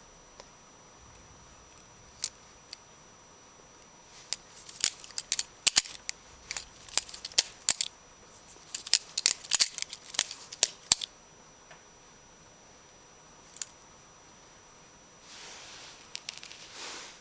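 Benchmade Morpho 51 balisong being flipped: its handles and blade clack and click in quick flurries through the middle, with a few single clicks before and after. A brief rustle comes near the end.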